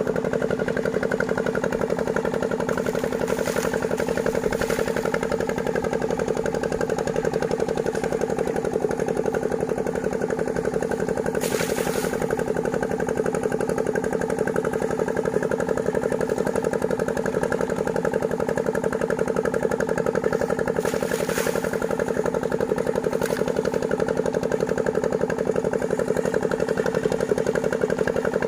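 An engine running steadily at idle, with a few brief hissing bursts over it.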